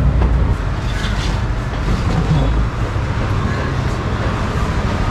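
Steady street traffic noise: a continuous low rumble of passing vehicles under a general haze of urban noise.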